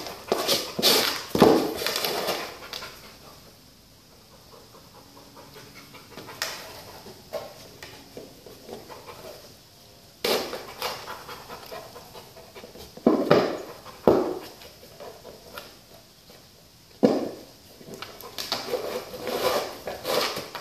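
Dog panting in bursts while it paws and noses a red plastic disc, with scrapes and knocks of the disc on concrete. There are quieter spells between the bursts.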